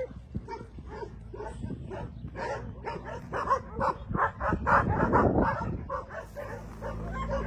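Dogs barking and yipping in quick, repeated short barks, busiest in the middle. A low steady hum joins near the end.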